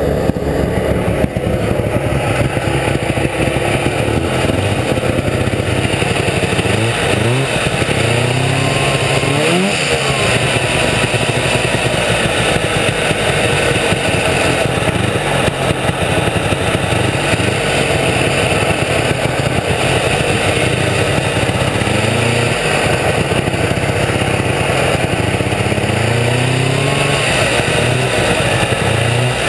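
1972 Ski-Doo T'NT 775 snowmobile's two-stroke twin running under way, its pitch rising and falling with the throttle several times.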